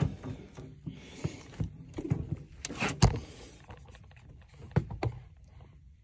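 Irregular knocks, taps and rustling from a phone being handled and swung around against clothing, with one louder knock about three seconds in.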